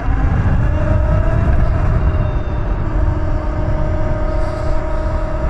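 Electric motorbike riding along, its motor giving a whine that rises slightly at first and then holds steady, under heavy wind rumble on the microphone.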